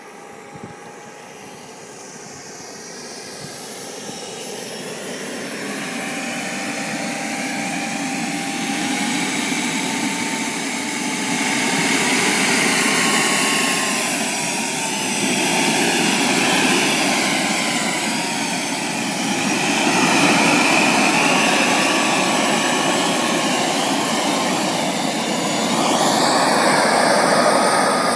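RC model jet's turbine engine running as the jet taxis, a hissing rush with high whines that waver up and down in pitch. It grows steadily louder over the first dozen seconds as the jet comes closer, then holds.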